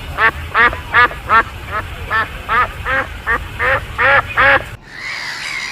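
A white domestic duck quacking over and over, about a dozen short quacks at a steady pace of two or three a second. The quacking stops abruptly near the end and a steady hiss takes over.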